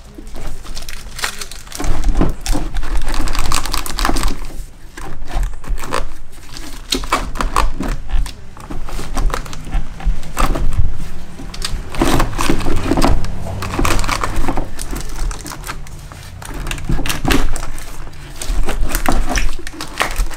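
Vacuum brake booster being forced into place at the firewall by hand: irregular clattering, knocking and rubbing as the metal housing bumps and scrapes against the firewall, hoses and wiring, with heavy low thumps.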